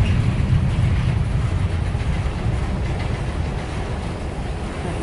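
Empty grain train's freight cars rolling slowly, a steady low rumble of wheels and couplers that gradually fades.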